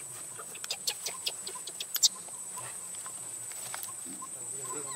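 Dry fallen leaves crackling in a quick run of sharp clicks over the first two seconds or so, as a macaque mother gathers her newborn up off the leaf litter, over a steady high hiss.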